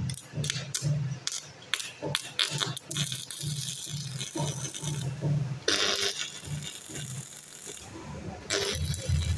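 Stick welding on steel flat bar: a run of short crackles as the electrode is struck to start the arc, then the arc crackling and sizzling steadily from about three seconds in, breaking off and restarting twice. A low hum pulses underneath.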